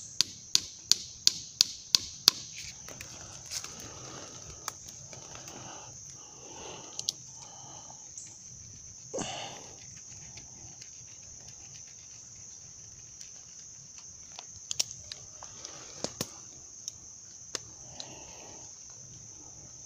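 Insects droning steadily on one high pitch. A quick, even run of sharp clicks, about three a second, fills the first two seconds, and a few faint rustles and knocks are scattered after it.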